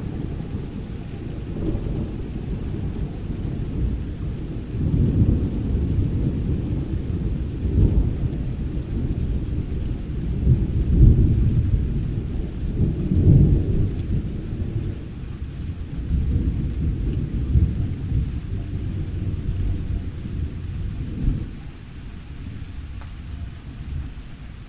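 Thunder rumbling in long, low, rolling swells that rise and fall several times, growing weaker near the end.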